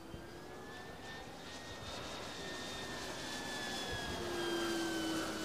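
Electric motor and propeller of a Dynam Hawker Hurricane RC model plane whining in flight, getting louder as it comes nearer, with its pitch falling slightly.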